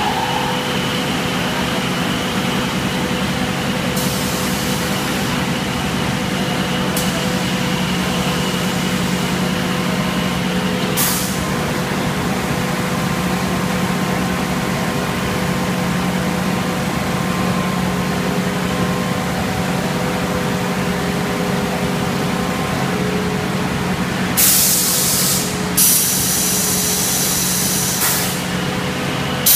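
Double-layer vacuum vibrating terrazzo tile making machine running with a steady hum. Loud bursts of hissing come near the end, with a brief one about eleven seconds in.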